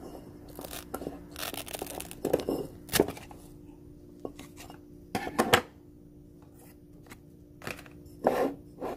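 Scissors cutting through thick, fleshy sansevieria leaves: a few separate crunchy snips with a sharp click among them.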